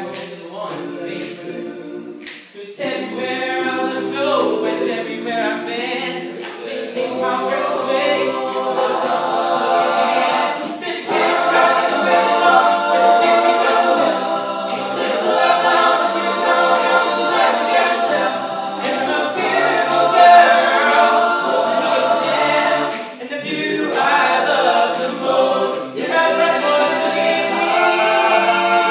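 All-male a cappella group singing a song in close harmony, many voices blended with no instruments. The singing swells fuller and louder about ten seconds in, with a brief drop just before.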